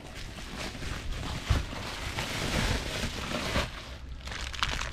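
Bubble wrap crinkling and rustling as it is handled and pulled open by hand, with a soft bump about a second and a half in and sharper crackles near the end.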